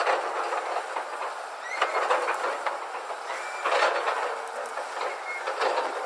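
Tipper lorries rattling and clanking as they move in line, in repeated noisy surges about every two seconds, with a few short high squeals between them.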